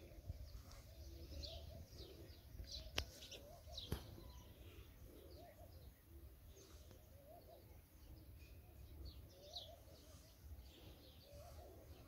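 Small birds in a tree chirping faintly, with short high calls repeated throughout. Two sharp clicks stand out about three and four seconds in.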